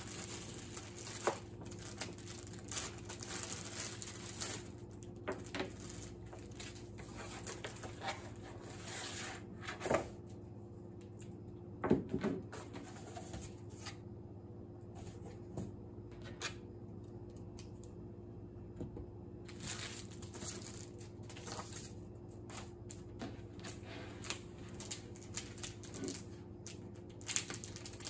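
Plastic packaging bags crinkling and rustling as a laptop's cables and accessories are unwrapped, in several bouts. Scattered clicks and knocks of items set down on a table, the loudest about ten and twelve seconds in, over a steady low hum.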